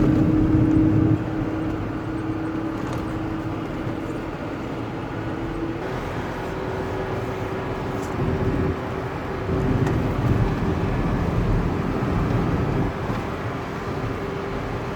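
Car driving: steady engine and road rumble with a continuous engine hum that shifts up slightly in pitch about six seconds in.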